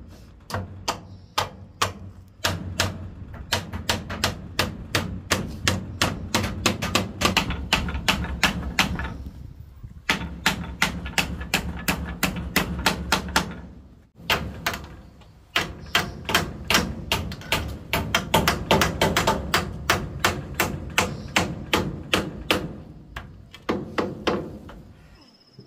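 Fast, uneven runs of hammer blows, several a second, with brief pauses between runs and a steady low hum behind them.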